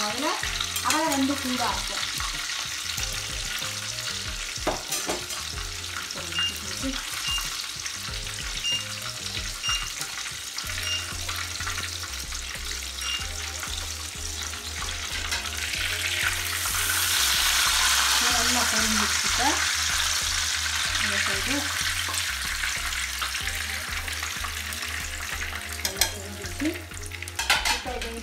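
Breaded chicken schnitzels shallow-frying in hot oil in a pan: a steady sizzle that swells louder for a few seconds about two-thirds of the way in.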